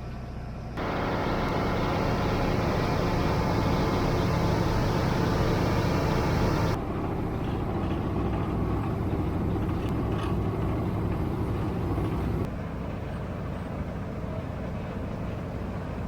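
Heavy road-works machinery and truck engines running steadily, the sound jumping abruptly in level about a second, seven seconds and twelve seconds in.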